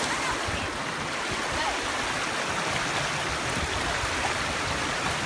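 Shallow river flowing: a steady rushing of water.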